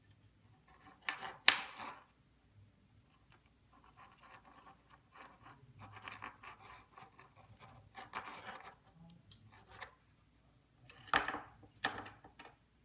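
Thin 20-gauge jewellery wire rustling and scraping as it is pulled through a drilled stone and handled on a wire bangle, with a few light sharp clicks, one about a second and a half in and two near the end.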